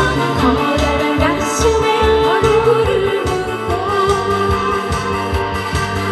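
Korean trot music with a steady beat and a bending, gliding lead melody, between sung verses of the song.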